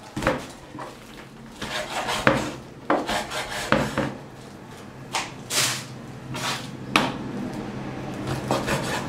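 Chinese cleaver slicing raw beef brisket on a wooden chopping board: irregular knocks of the blade against the wood between cuts through the meat.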